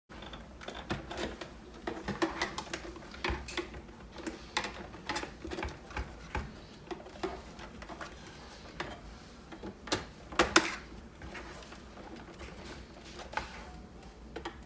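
Irregular clicks, taps and knocks of hands working on a Keurig coffee maker's plastic housing and small parts, with a louder pair of knocks about ten and a half seconds in.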